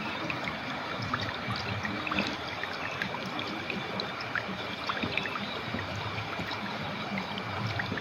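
Clear, shallow river water flowing steadily over stones, a continuous rushing with many small bubbling plinks and splashes scattered through it.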